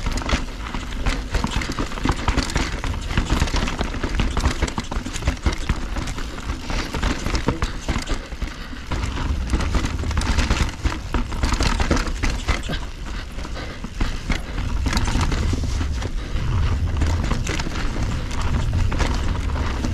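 Mountain bike rolling down a rocky dirt singletrack: tyres crunching over stones and the bike rattling and clattering with irregular knocks, over a low rumble that swells a couple of times.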